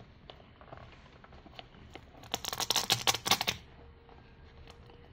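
Hook-and-loop strap on a sneaker being peeled open: a loud crackling rip lasting about a second, a little past the middle, among soft handling taps and rustles.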